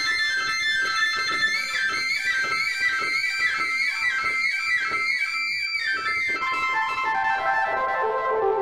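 Synthesizer solo played live on a Yamaha DX7: fast runs of bright, high notes bending up and down in quick repeated figures. About six seconds in, it moves down into lower, held tones.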